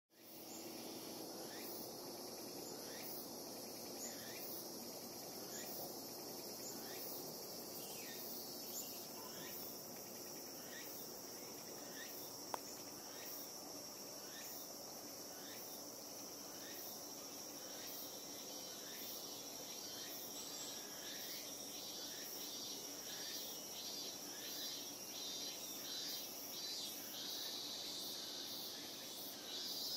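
Insects in the garden trees: a steady high drone with short chirping calls about once a second. A faster pulsing call joins a little past halfway. There is a single sharp tick near the middle.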